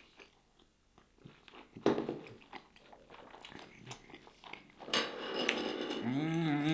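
Close-up chewing and crunching of food, with wet mouth clicks, ending in an appreciative hummed "mmm" near the end.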